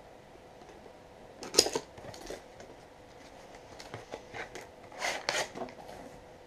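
A small cardboard hard-drive box being opened and its contents handled: short clicks and scrapes of cardboard and plastic packaging, loudest about one and a half seconds in and again around five seconds.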